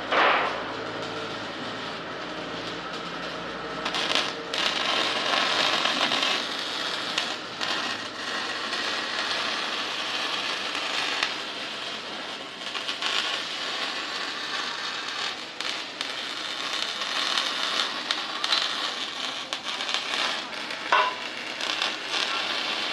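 Continuous crackling and sizzling of electric welding on steel cattle panels, swelling and fading in strength.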